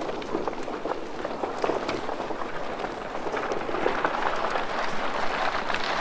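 Horses walking by on a gravel road, their hooves and a load of bamboo poles dragged by one of them crunching and scraping over the gravel. The dense crackle grows a little louder toward the end.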